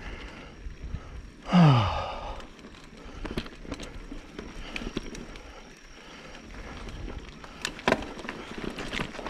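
A mountain bike rolling over a dirt trail, its tyres making a rough, steady noise, with scattered clicks and knocks as it goes over roots and bumps, stronger near the end. About a second and a half in, the rider lets out a loud, short groaning sigh that falls in pitch.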